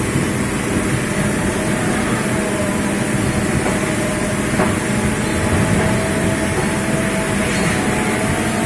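Steady machinery noise, even and unbroken, with a faint steady whine running through it.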